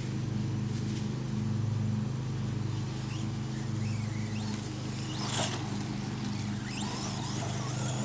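Brushless electric RC monster truck (Redcat Volcano EPX Pro) driving on grass, its motor whine rising briefly a few times, with a short clatter about five seconds in. A steady low drone runs underneath.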